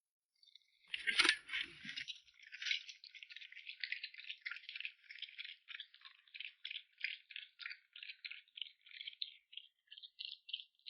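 A light, high rattling clatter, repeated a few times a second. It starts loudest about a second in and slowly thins out and fades.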